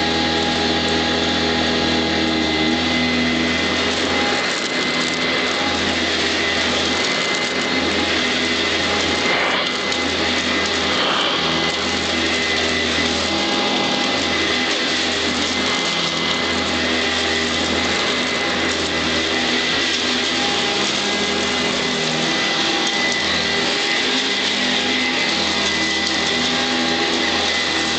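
Blue Eureka ESP upright vacuum cleaner running steadily, its motor giving a high whine over a loud rush of air while it vacuums up bird seed.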